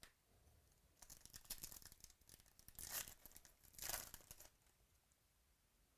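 Crackly tearing and crinkling of a trading-card pack's wrapper as it is torn open, in short bursts between about one and four and a half seconds in, the last two the loudest.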